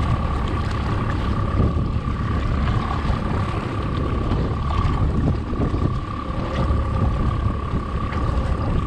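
Wind buffeting the microphone on a fishing boat at sea, over a steady high-pitched hum and water sloshing and splashing along the hull.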